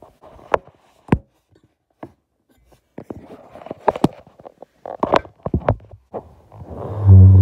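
Handling noise from a phone being moved about: scattered knocks, clicks and rubbing, with a quiet gap in between. Near the end a loud, steady low hum sets in.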